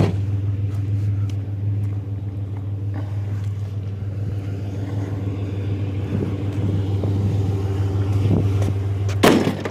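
Truck engine running steadily with a low hum. A short, loud knock comes near the end.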